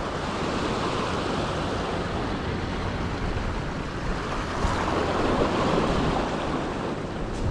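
Small sea waves washing and splashing over a rough rocky shoreline, a steady wash that swells louder about five seconds in.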